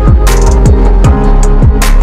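Loud electronic background music with a fast beat: deep kick drums that drop in pitch, sharp snare hits and sustained synth chords.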